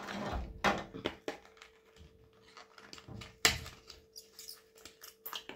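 A small cardboard-and-plastic makeup box and its contents being handled: a brief rustle of packaging, then scattered clicks and taps, with one sharp click about three and a half seconds in. A faint steady hum runs underneath.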